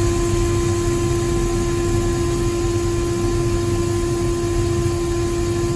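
Sugar beet piler and truck machinery running: a steady engine and conveyor rumble with a strong, unchanging tone over it.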